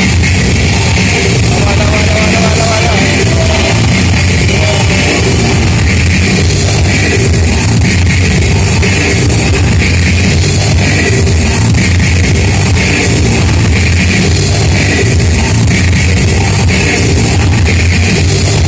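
Loud rock music with a heavy, steady bass.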